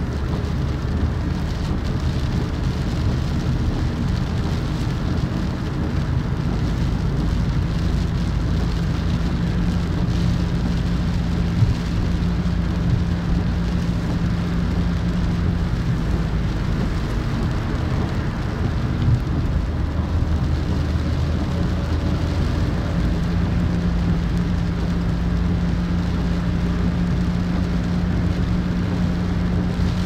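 Car driving on wet asphalt, heard from inside the cabin: a steady hiss of tyres on the wet road with a low engine hum, the hum fading out for a few seconds past the middle.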